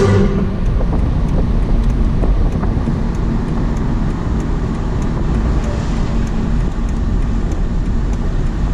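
Steady low road and tyre rumble inside the cabin of a moving car.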